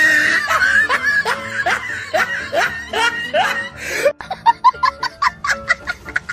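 A laughter sound effect, a run of short rising 'ha' notes, laid over background music, changing to a quicker, choppier pattern about four seconds in.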